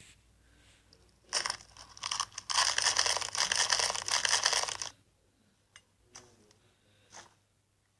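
Slime being pressed and worked by hand, crackling and popping: a short burst about a second in, then about three seconds of dense crackling that stops suddenly.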